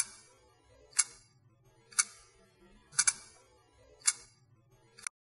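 Clock-like ticking: a sharp tick about once a second, with two ticks close together about three seconds in.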